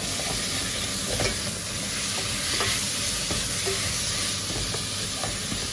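Raw chicken pieces sautéing in hot oil with onion, garlic and ginger in a pot: a steady sizzle as they are stirred in with a ladle, with a few light knocks of the spoon against the pot.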